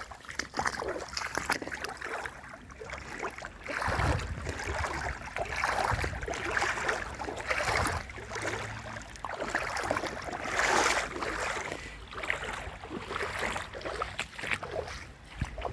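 Muddy puddle water sloshing and splashing in repeated surges, about one every second or so.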